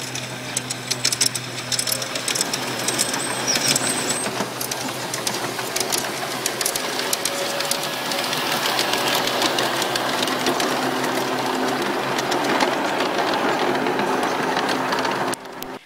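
G-scale model train running on garden track: the locomotive's electric motor and gearing whir steadily while the wheels click rapidly over the rail joints. The sound cuts off abruptly near the end.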